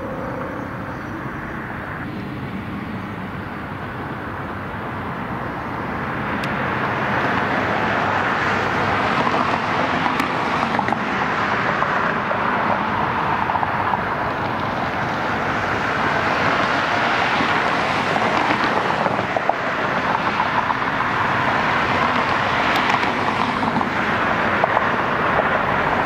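Steady rushing noise of outdoor vehicle traffic, growing louder about six seconds in and then holding.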